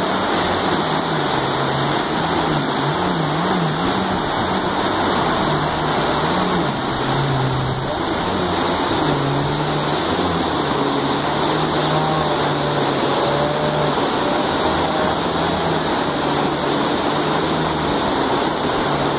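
Whitewater rapids rushing steadily, under the droning engine of a stand-up jet ski that rises and falls in pitch as it is throttled through the waves.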